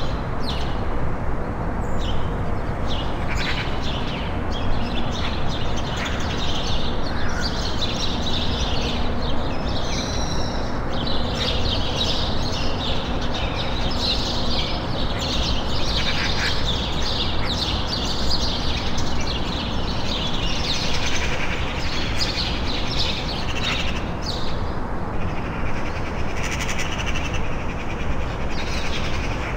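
Many small birds chirping and twittering over a steady low rumbling noise.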